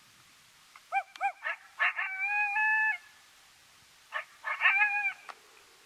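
Coyote barks and howling: a few short rising-and-falling barks about a second in, then a howl held for about a second, and another run of barks ending in a shorter howl near the end.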